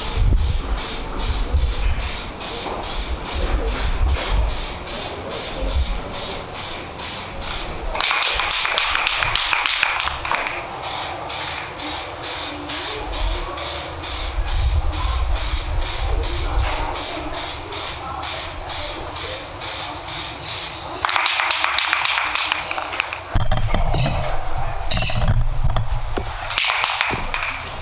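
Aerosol spray paint hissing out of the can in three bursts: a long one about a third of the way in, another about three quarters through, and a short one near the end. A steady fast ticking rhythm of a few strokes a second runs underneath.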